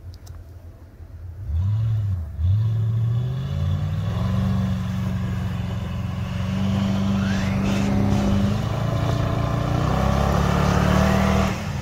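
Pickup truck engine revved hard while stuck in snow: two short blips of the throttle about a second and a half in, then revs held high for around nine seconds with a hiss of wheels spinning in the snow, dropping off sharply near the end.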